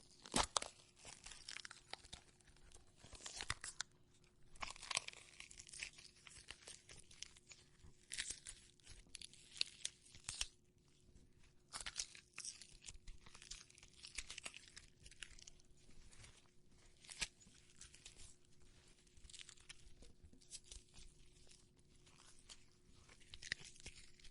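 Foley gore effect: a prop being torn and crushed close to the microphone, giving a long run of irregular wet crunches and crackly tearing.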